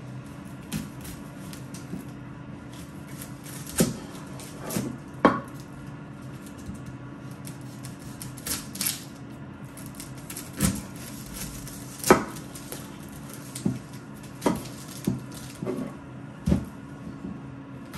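Kitchen knife chopping a red onion on a cutting board: about a dozen sharp, irregularly spaced knocks of the blade striking the board.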